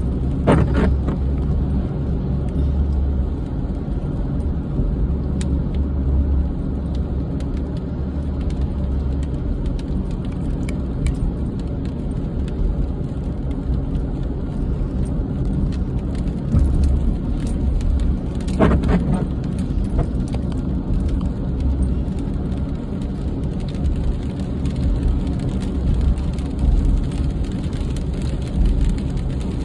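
Steady low rumble inside a car driving on a rain-wet road, from tyres and engine, with a few brief swishes: one right at the start, one about two-thirds through, and one at the very end.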